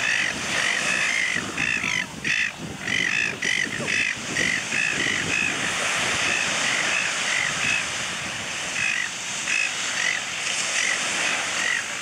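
Silver gulls screeching at each other in a territorial boundary dispute. A rapid series of short, harsh, arched calls, several a second at first, thinning out to scattered calls in the second half.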